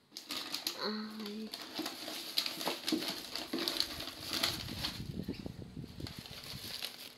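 Handling noise from a phone being carried and rubbed against clothing: a run of short clicks and rustles, with a low rumble around the middle.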